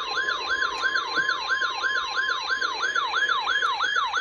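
The steady 1050 Hz NOAA Weather Radio warning alarm tone of a weekly test, with a rapid electronic siren yelp sweeping up and down over it about three to four times a second. Both cut off abruptly at the very end.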